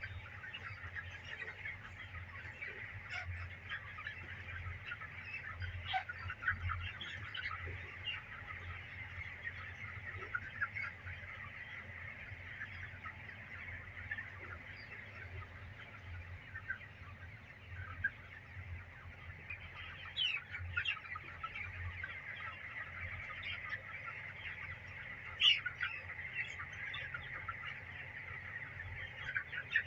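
A large flock of month-old broiler chickens calling all at once in their shed, a dense continuous chorus of short calls with a few louder ones standing out. A low steady hum runs underneath.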